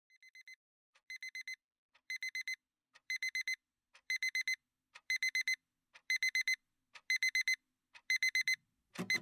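Phone alarm beeping: a group of four quick high beeps once a second, growing louder over the first few seconds.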